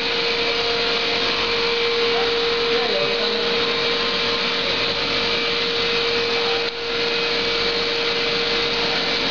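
Processing machinery running steadily: a constant whirring hiss with a steady hum under it. It dips briefly about seven seconds in.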